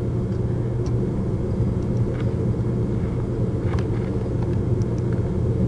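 A steady low hum of background noise, with a few faint clicks, one about two seconds in and another near four seconds.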